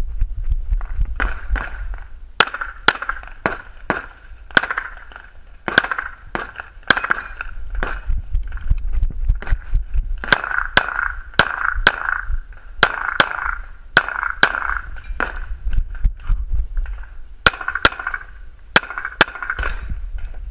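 Pistol shots, about two dozen, mostly fired in quick pairs about half a second apart, with short gaps between groups: double taps, two shots per target, as shot on a practical-shooting stage.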